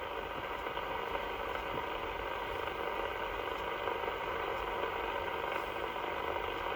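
CB radio receiver hissing steadily through its speaker between transmissions: open-channel band noise and static on a long-distance skip channel, with faint steady tones running through it.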